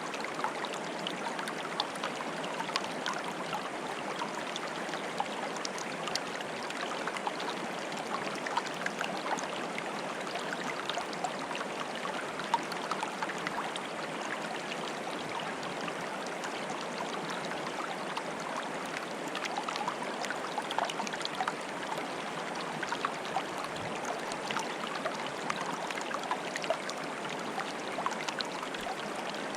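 Water bubbling and trickling steadily, a dense stream of small splashes and pops over an even rush.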